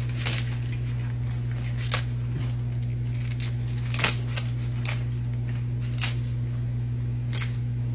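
Leafy turnip greens rustling and crinkling in several brief, crisp, irregular rustles as the leaves are handled and laid onto a pile of chopped collard greens, over a steady low hum.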